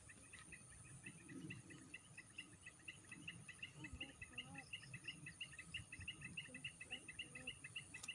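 Faint, steady insect chirping: a rapid train of short high chirps, about five to six a second.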